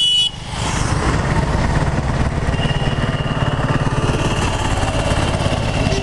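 Vehicle engine running steadily with a dense low rumble, heard from a vehicle moving along a busy road. A horn beeps briefly at the very start.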